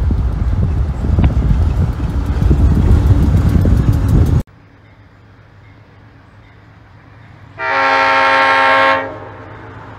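Heavy road and wind noise from a car driving alongside a moving boxcar train, which cuts off abruptly about four seconds in. Then one horn blast of about a second and a half from an approaching GE B36-7 diesel locomotive.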